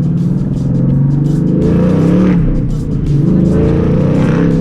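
Ford Mustang GT's 5.0 V8 with the resonator and muffler deleted, accelerating with a loud exhaust: the engine note climbs about two seconds in, drops briefly, and climbs again near the end.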